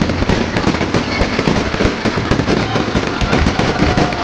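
Fireworks display going off without pause, a dense run of cracks and crackles over deep booms.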